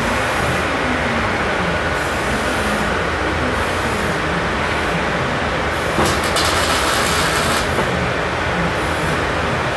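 Welding on a steel base column: a steady machine hum and rumble, with a brighter, hissing stretch that starts suddenly about six seconds in and lasts about a second and a half.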